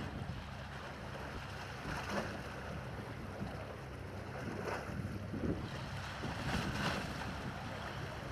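Wind buffeting the microphone over the steady wash of sea water, with a few short swells of hiss as gusts or small waves come in.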